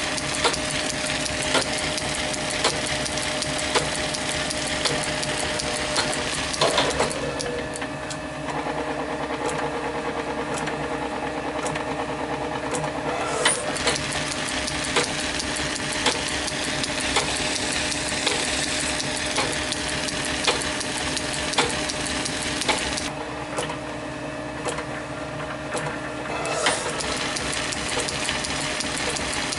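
Small metal lathe running at a steady speed while a spindle-held centre drill and then a drill cut a hole through a small square brass block, giving a constant motor hum with a light tick about once a second.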